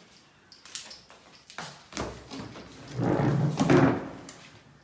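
A few sharp knocks and taps, then about a second of louder rough handling noise, as of objects being moved and set down.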